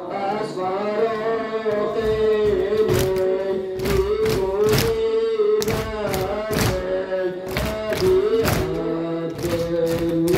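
Male voices chanting a Shia Muharram noha (mourning lament) together, held on long sung notes. From about three seconds in, the chant is joined by the slaps of hands beating on chests (sineh-zani), roughly once a second, in time with the lament.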